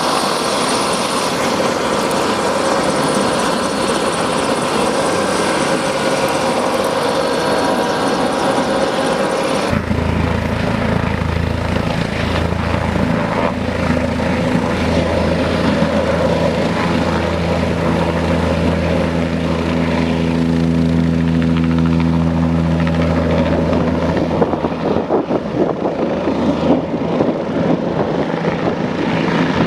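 Air ambulance helicopter's turbine engine and rotor running steadily on the ground. At first it is a hissy, high-pitched whine; about ten seconds in the sound changes abruptly to a lower, steady hum. Near the end the sound turns rough and uneven.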